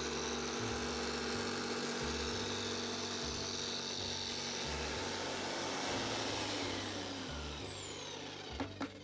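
Bosch jigsaw mounted under a table, running as it cuts a board. About six and a half seconds in its pitch falls steadily as the motor winds down. A few clicks follow near the end.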